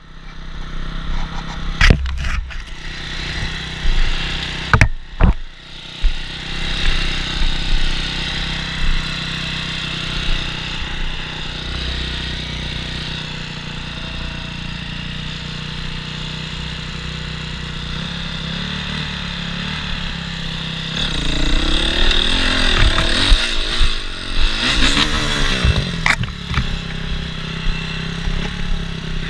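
Enduro motorcycle engine running, with a few sharp knocks in the first six seconds. From about twenty seconds in, the revs rise and fall repeatedly as the bike is worked out of a slippery spot.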